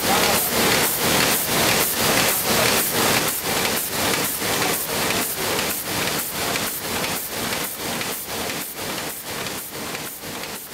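Printing press running: a steady hiss with a regular mechanical beat about three times a second, fading out gradually.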